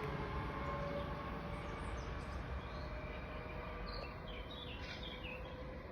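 SNCF Z 20900 double-deck electric train running, a steady noise with faint even tones from its electrical equipment, slowly fading. A few bird chirps come in near the end.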